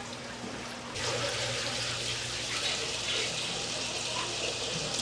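Steady rush of running water that starts abruptly about a second in, as from a tap or hose pouring into a live seafood tank.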